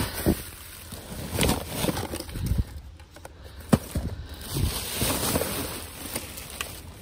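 Plastic trash bags rustling and crinkling as they are pushed aside and handled, with cardboard shifting among them. A sharp knock comes a little under four seconds in.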